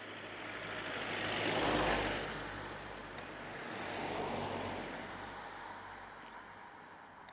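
Two vehicles passing on a nearby road, each a broad tyre-and-engine noise that swells and fades, the first peaking about two seconds in and the second about four seconds in.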